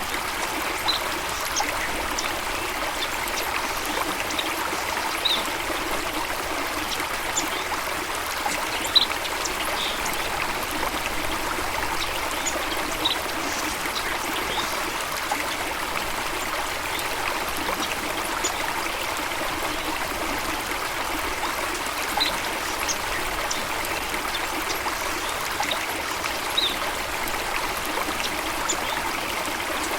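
Small stream running and trickling steadily over rocks, with brief high plinks every few seconds.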